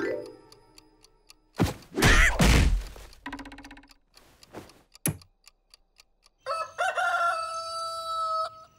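Cartoon rooster-crow sound effects: a loud, squawking crow about two seconds in, then a short buzzy rattle and a click, and a longer, steadier crow in the last two seconds.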